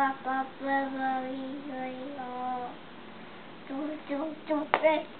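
A voice singing a slow tune in long held notes, then a few shorter sung notes near the end, with one sharp click shortly before it ends.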